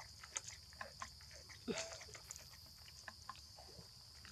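Faint monkey sounds: scattered clicks and smacks with a short falling squeak, over a steady high-pitched hiss.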